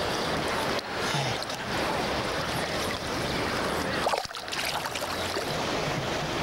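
Shallow seawater washing and splashing around a wader's legs and hands as a palometa is released and swims off, over a steady hiss of surf.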